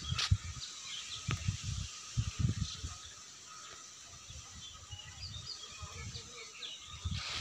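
Rural outdoor ambience: scattered short bird chirps over irregular low rumbles, quieter through the middle.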